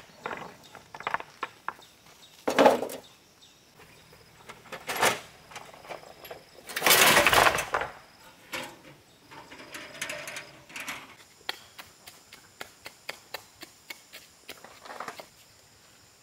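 Stones knocking against each other and against a steel wheelbarrow as they are handled and loaded, with one longer loud clatter about seven seconds in.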